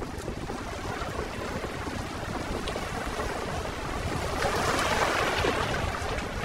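Small sea waves washing in over shoreline rocks, a steady wash that swells louder about two-thirds of the way through.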